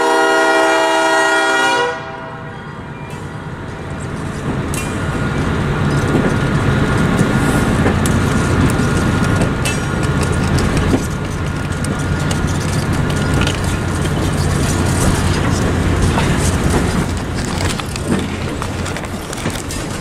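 A diesel train's air horn sounds and cuts off about two seconds in. Then passenger coaches roll past close by, with a steady rail rumble and repeated wheel clicks over the rail joints.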